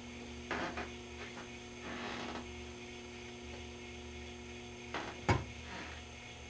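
Powered-up GE 212 tube radio giving a steady mains hum with no station tuned. A few handling clicks and knocks sound over it, the sharpest about five seconds in.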